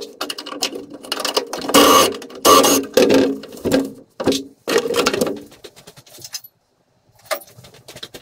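Irregular metallic clinks, knocks and rattles of tools and subframe bolts being handled, in short sudden bursts, with a brief silence shortly before the end.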